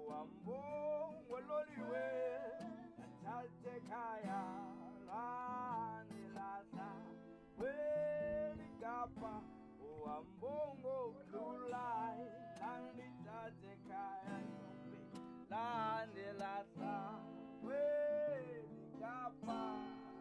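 Quiet background music: strummed acoustic guitar under a gliding melody line.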